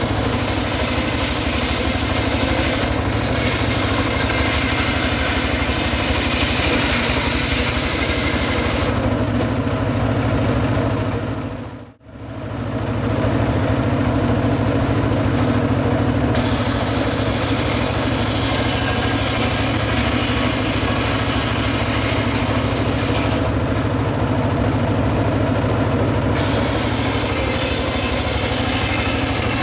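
Engine-driven homemade circular sawmill running steadily, its large blade ripping sengon logs into beams. The higher cutting noise drops out twice for a few seconds, and the whole sound fades out and back in briefly about twelve seconds in.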